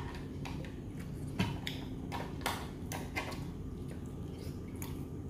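Light, scattered clicks and taps of a spoon and crab shells being handled while steamed mud crab is picked apart and eaten, over a low steady hum.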